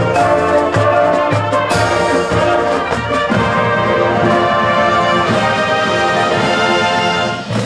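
High school marching band playing, the brass section (sousaphones, mellophones, trumpets) holding full sustained chords with sharp percussion hits. The sound falls away near the end.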